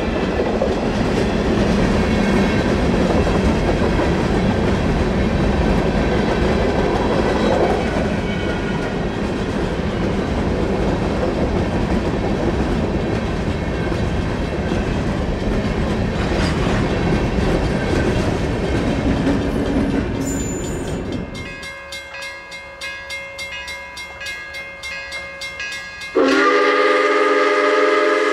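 Long freight train of covered hopper cars rolling past, a steady wheel-and-rail noise with clickety-clack over the rail joints. About three-quarters of the way through the noise falls away. Near the end a QJ-class steam locomotive's whistle blows, loud and sustained, at a steady pitch.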